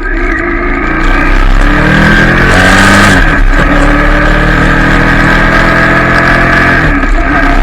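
Royal Enfield Shotgun 650's 648 cc parallel-twin exhaust on the move, rising in pitch under acceleration, dropping sharply at an upshift about three seconds in, then pulling steadily with another brief dip near the end.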